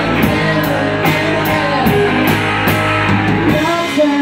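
Live rock band playing an instrumental passage on electric guitars, bass guitar and drums, with cymbal hits on a steady beat about two or three times a second. The low bass drops away near the end.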